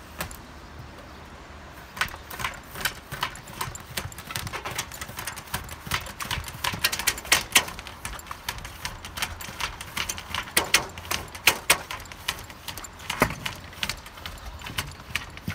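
Hand tools on metal standing-seam roof panels: a hammer and a hand seaming tool striking and clamping the sheet metal, making irregular sharp metallic taps and clicks. They start about two seconds in and come at up to several a second.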